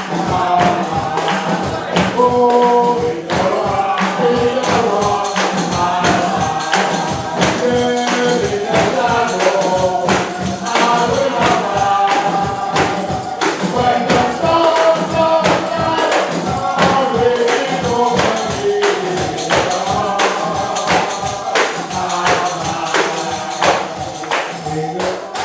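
Gospel praise singing by a group of voices, with a tambourine keeping a steady beat.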